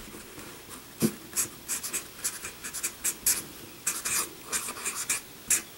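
Marker writing on a paper sticky note: a quick series of short strokes, with a light tap about a second in.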